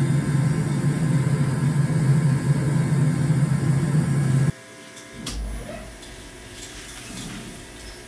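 Forge running with a loud, steady rush and a low hum, cutting off suddenly about four and a half seconds in; after that, a much quieter shop background with one low thump.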